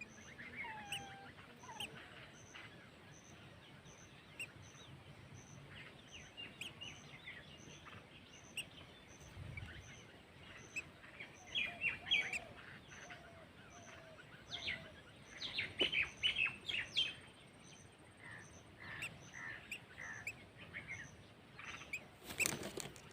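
Several birds chirping and calling in short, scattered notes, with a few lower whistled notes among them. A sharp knock comes near the end.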